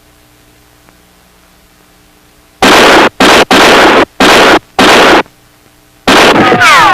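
Faint steady hum, then a run of five loud, harsh noise bursts of uneven length, each under a second, like crashes or blasts from a film soundtrack. Near the end a sixth burst gives way to falling, wailing tones.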